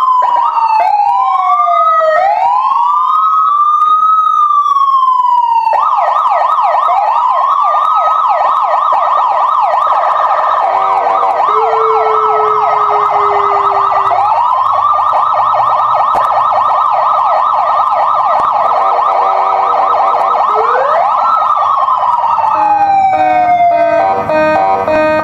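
Electronic multi-sound horn module cycling through its siren sounds. It plays a slow rising-and-falling wail, then from about six seconds in a fast, rapidly repeating yelp-like warble. Near the end comes a falling glide, then a stepped beeping tune.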